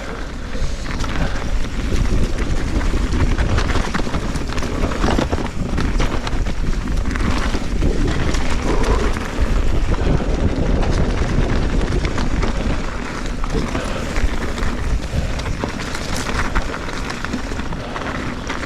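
Wind buffeting the helmet or chest camera's microphone during a fast mountain-bike descent, a steady low rush. Over it comes a constant clatter of the Trek Fuel EX 7's tyres and frame over rough, icy trail.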